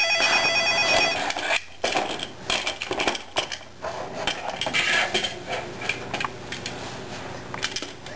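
A plastic toy is knocked and rattled against a high-chair tray, giving irregular clicks and taps. A steady electronic ringing tone sounds for about the first second, then stops.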